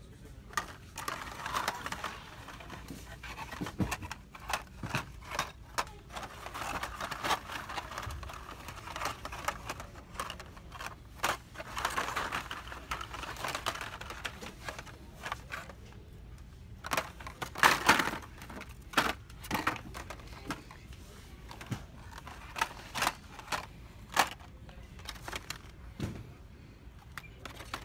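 Carded Hot Wheels packages, cardboard with plastic blisters, clacking and rustling as they are flipped through on peg hooks. Irregular clicks throughout, with a louder clatter about 18 seconds in.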